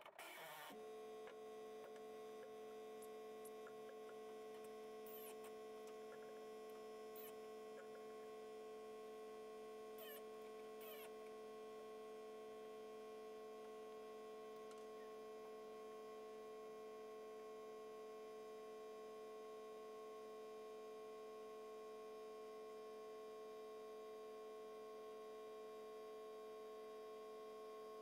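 Faint steady hum made of several held tones, with a few brief faint high chirps in the middle.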